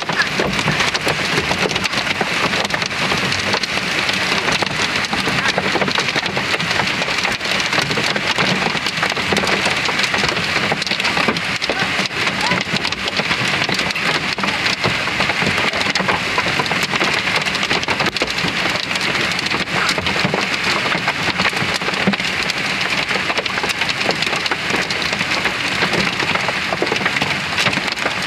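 Heavy hailstorm with rain, heard from a car: a dense, steady clatter of countless hailstones striking, with no let-up.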